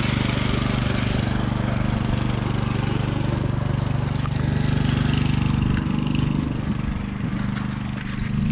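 A small engine running steadily at idle, its note shifting slightly about six seconds in.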